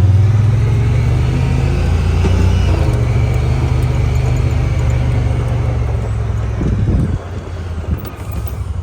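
A motor vehicle running, a steady low engine rumble that eases off about seven seconds in.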